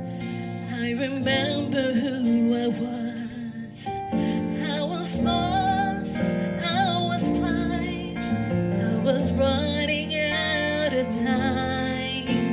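Live worship band playing a slow, gentle song, with a woman singing the melody over keyboard and band; deeper notes fill in about five seconds in.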